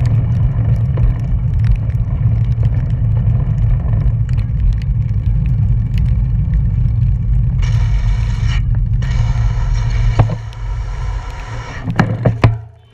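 Wind buffeting the microphone of a camera on a moving road bike, a steady low rush that fades as the bike slows. In the second half, the rear freewheel hub buzzes while the rider coasts in, and a few sharp knocks come near the end as the bike stops.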